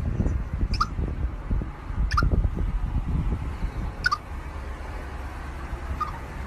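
An animal giving short, high squeaks, one every second or two, four in all, over a low rumbling background.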